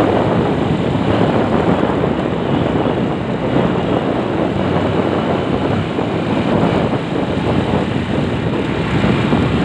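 Motorcycle riding along: the engine running steadily under a constant rush of wind and road noise on the phone's microphone.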